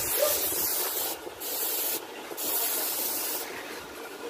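Gravity-feed air spray gun spraying a wood finish: a hiss of compressed air and atomised liquid in about four bursts, with short breaks between trigger pulls; the last burst is fainter.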